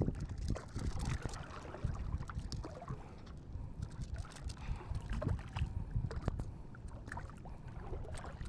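Water sloshing and lapping close to the microphone, an uneven low rumble with many small scattered knocks and clicks.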